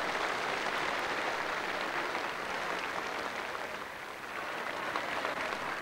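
A large crowd applauding steadily, the clapping dipping briefly about four seconds in.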